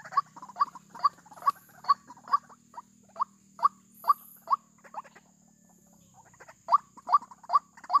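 White-breasted waterhen calling: a fast run of short, sharp calls, about two or three a second, that pauses for a second and a half past the middle and then starts again.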